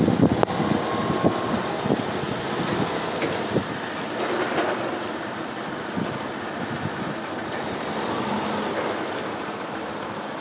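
Forklift running as it drives across the yard, a steady mechanical noise with a few knocks and rattles. It is loudest in the first second or two and eases off slightly after.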